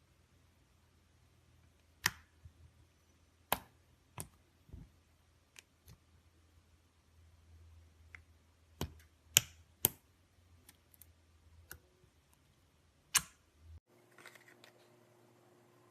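Irregular sharp clicks and snaps, about a dozen over the stretch, a few of them loud and the rest faint.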